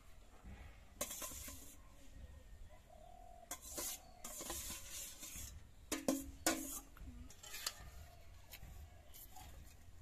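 Cooked rice scraped and shaken out of a stainless steel bowl onto banana leaves, with a few bursts of scraping and two sharp metal clinks of the bowl about six seconds in.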